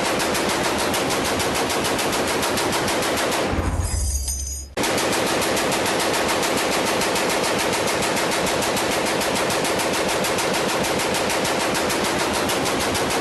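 .50-calibre machine gun firing long, rapid, sustained automatic bursts. About three and a half seconds in, the firing gives way for about a second to a low boom that fades, then cuts back in abruptly.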